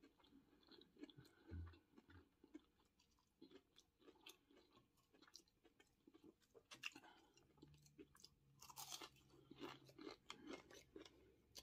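Faint close-up chewing of fried catfish nuggets: soft crunches and wet mouth clicks from the fried breading, thickening in the second half.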